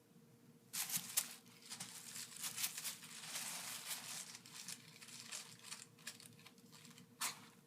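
Plastic bag crinkling and rustling as a cat licks at it, a busy run of crackles starting about a second in, then one more sharp crinkle near the end.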